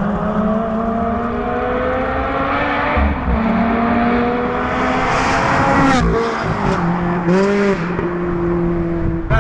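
Ferrari 360's 3.6-litre V8 accelerating hard, its note climbing steadily with a brief break for a gear change about three seconds in. About six seconds in it lifts off and the pitch drops, with a couple of short rev blips on the way down.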